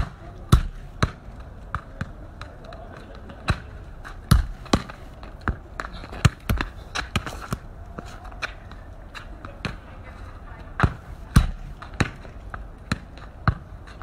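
A football being kicked and bouncing on paving stones: a string of sharp thuds at irregular intervals, some in quick pairs.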